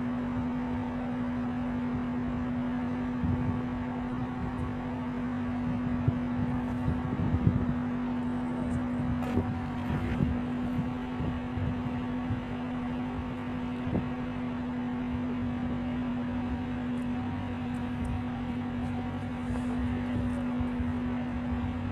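Muddy flash-flood torrent of a mountain stream, a steady low rumble with irregular knocks from rocks carried in the flow, under a constant low hum.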